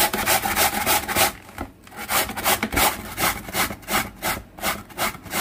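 Peeled raw potato being grated by hand on a plastic grater: a run of rasping strokes, about five a second, a short lull about a second and a half in, then the strokes resume a little slower.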